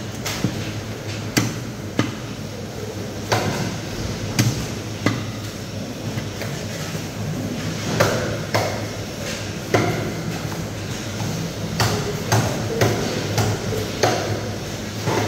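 Cleaver chopping through a threadfin fish into steaks on a wooden chopping block: sharp irregular knocks, roughly one a second, over a steady low hum.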